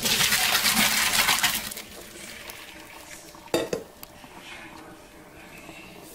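A utensil working against cookware. There is a loud, dense run of rapid clattering and scraping for the first second and a half, then one sharp knock about three and a half seconds in.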